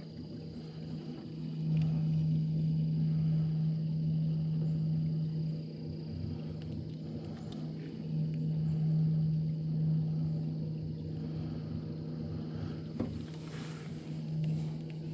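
Small 30 lb-thrust electric trolling motor running steadily with a constant low hum as it pushes the jon boat along. A brief rush of noise comes near the end.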